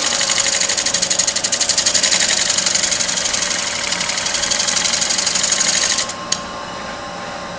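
A Robert Sorby 1-inch scraper with a fresh burr scraping the outside of a spinning wooden bowl on a wood lathe, a fast, even pulsing hiss of the cut. It stops abruptly about six seconds in, leaving a quieter steady hum and a single click.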